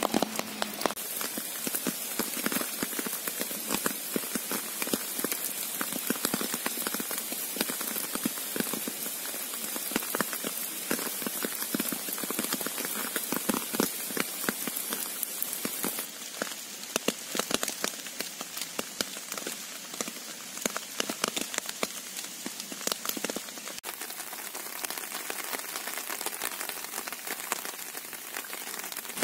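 Gentle rain falling steadily, a dense patter of individual raindrops, its sound shifting slightly a few times.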